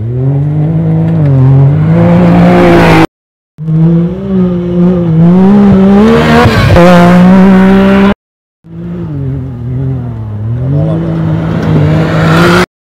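Rally buggy's engine revving hard as it charges past on a dirt track, the pitch dipping and climbing again and again with throttle and gear changes. The sound cuts out twice for about half a second.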